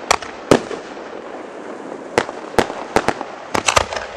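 Fireworks going off: about nine sharp bangs at uneven spacing, two in the first second, then a run from about two seconds in that bunches closely near the end, over a steady background noise.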